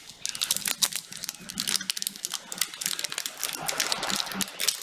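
Trading card pack wrapper crinkling and crackling in the hands as it is worked open, a quick, irregular run of crackles throughout.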